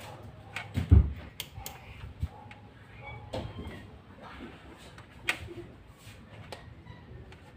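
A low thump about a second in, then scattered light clicks and taps.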